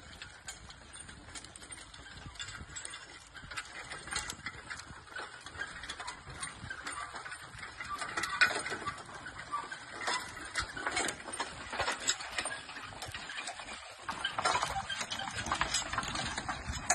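Team of two mules pulling a steel harrow over tilled ground: irregular rattling and clinking of the implement's metal and the harness, growing louder as the team comes closer.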